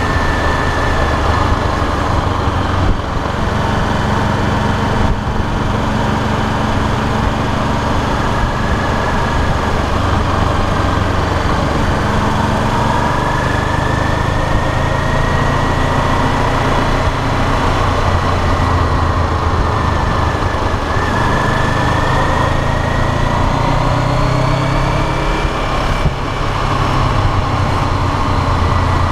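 Honda CBR500R's parallel-twin engine running steadily at city speed, heard close up from the tank along with rushing wind noise. Its note rises and falls gently with the throttle, with a brief drop near the end.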